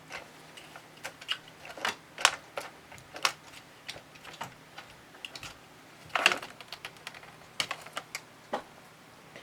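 A cat rummaging through a drawer: irregular light clicks and knocks as small objects are pawed and shifted about.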